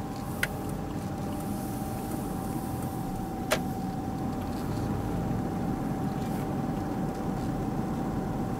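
Car driving slowly, heard from inside the cabin: a steady low engine and road rumble with a faint steady whine. There is a sharp click about three and a half seconds in.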